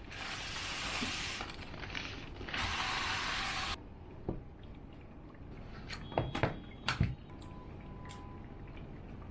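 Keyboard packaging being handled during unboxing: two bursts of rustling and sliding, then a few sharp clicks and knocks as pieces are set down.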